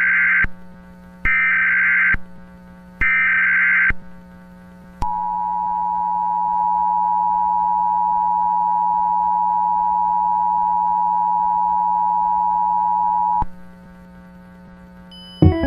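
Emergency Alert System tones: short screeching bursts of SAME header data, three in all about a second apart, then the two-tone EAS attention signal (853 and 960 Hz) held steady for about eight seconds before it stops abruptly. A faint low hum runs underneath, and music starts just at the end.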